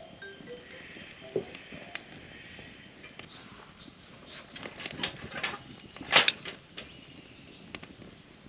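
A chorus of birds chirping and twittering in quick high repeated notes, with a few loud harsh parrot squawks about five and six seconds in.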